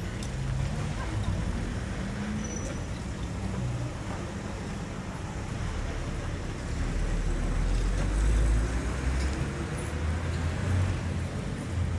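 Street traffic rumbling steadily, with a vehicle passing louder about seven to nine seconds in.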